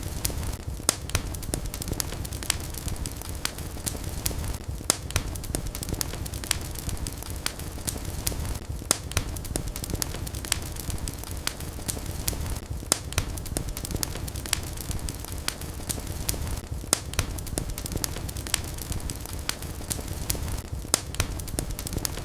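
Fire crackling in a fireplace: a steady low rumble of flames with sharp pops and snaps at irregular intervals.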